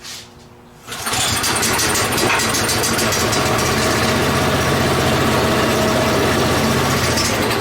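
Small go-kart engine starting: after a short rasp right at the start, it catches about a second in and runs steadily at a fast, even beat. It starts because the newly wired kill switch is set to run.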